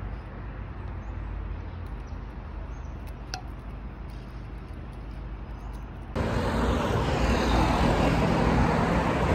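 Steady low rumble of road traffic. About six seconds in it cuts to a much louder rushing noise of wind on the microphone with traffic beside a road.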